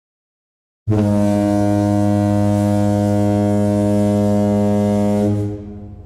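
Ship's horn sounding one long, deep, steady blast that starts abruptly about a second in and dies away near the end.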